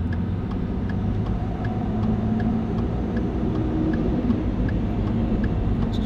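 Steady low rumble of a vehicle driving on a paved road, heard from inside the cab: engine and tyre noise.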